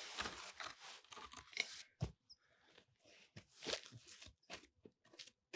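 Handling noise from a rifle and its bipod being moved on dry, gravelly ground: rustling and crunching for the first two seconds, then a few sharp clicks and another short rustle. The bipod leg has just collapsed.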